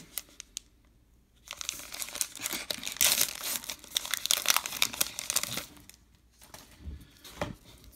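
Plastic wrapper of a baseball card pack crinkling as it is torn open, starting about a second and a half in and lasting about four seconds, followed by a few soft clicks near the end.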